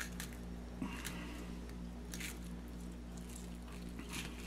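Fillet knife and fingers working a fillet off a panfish's ribs: a few soft, wet squishes and small cutting clicks, over a steady low hum.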